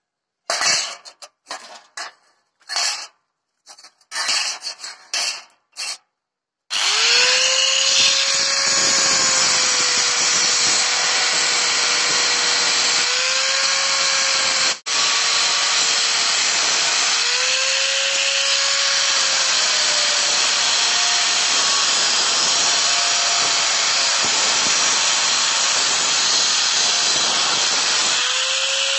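Handheld angle grinder cutting through a steel saw blade: a steady grinding shriek, its motor whine rising each time the disc comes free and sinking under load. It starts about seven seconds in, after a few short, choppy sounds.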